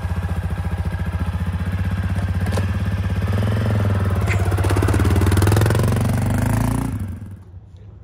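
An engine running steadily with an even pulsing beat, rising a little in the middle, then shut off about seven seconds in.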